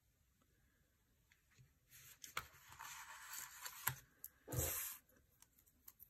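Paper rustling and sliding as Happy Planner pages are handled and shifted across a table, with a few light clicks and a short, louder swish about three-quarters of the way through.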